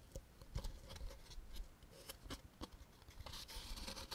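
Molded-pulp cardboard packaging being handled: faint scattered taps and clicks, then near the end a dry scraping rub as the pulp insert is lifted out of the tray.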